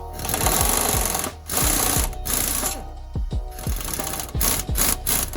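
Air impact wrench hammering in several short bursts on the strut bolts, with a loud hiss of exhaust air. Background music with a steady low beat runs underneath.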